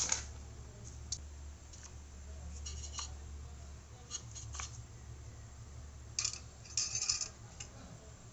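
Scattered clicks and scrapes of handling as a soldering iron stand is set down on a table and the soldering iron is slid into its coiled metal spring holder, with a denser run of scraping clicks about six to seven seconds in. A steady low hum runs underneath.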